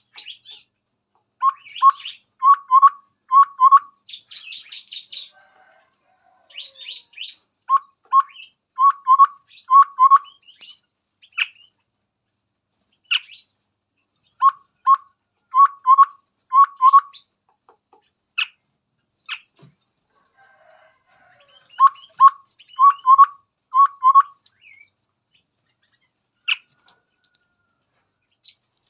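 Chestnut-rumped babbler singing: four phrases of five or six short, low, evenly spaced notes, mixed with higher chirps and chatter.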